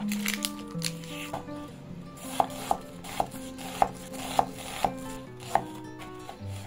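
Arcos chef's knife chopping onion on a wooden cutting board: sharp knocks of the blade on the wood, roughly two a second, starting about two seconds in.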